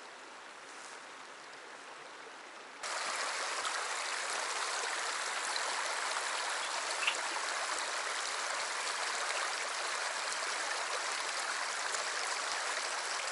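Shallow, stony mountain stream flowing and rushing steadily over rocks. The sound gets abruptly louder about three seconds in.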